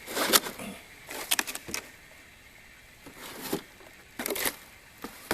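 Apples being handled and put into a basket: several short bursts of rustling and light knocking, with a sharp click near the end.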